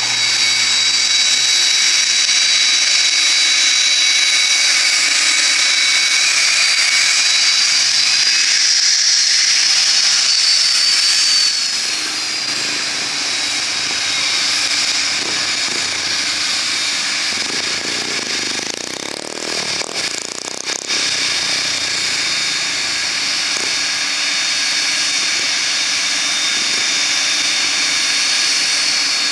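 Cessna Citation II's twin Pratt & Whitney JT15D turbofans running with a steady high-pitched whine over a rushing hiss. The whine rises a little in pitch around a third of the way in.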